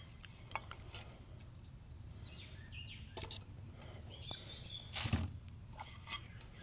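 Faint, scattered clicks and light knocks of small metal and plastic parts being handled as a steering wheel, hub and horn contact are taken apart, over a low steady background hum.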